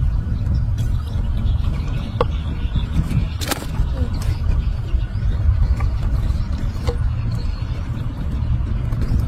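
Wind buffeting the microphone, a steady low rumble, with a few sharp clicks from the wire-mesh fish trap and its catch being handled.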